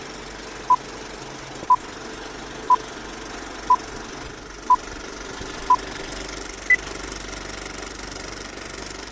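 Film projector clattering steadily under a film-leader countdown: a short beep every second, six at one pitch, then a seventh, higher beep.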